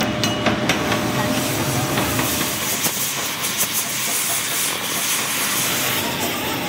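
Gas cutting torch hissing steadily as it cuts through a rusted steel anchor-chain link, with a few light clicks near the start.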